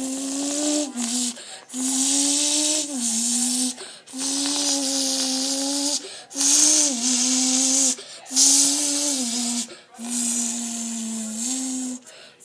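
A person imitating a Bugatti Veyron engine with their mouth: about six hummed-and-hissed bursts, with short breaks for breath between them. The pitch bends up or down within several of the bursts.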